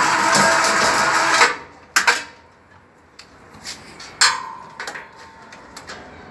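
Electric balcony hoist's winch motor running with a steady whir, cutting off suddenly about a second and a half in. Then several sharp knocks and clicks, one near the middle ringing briefly.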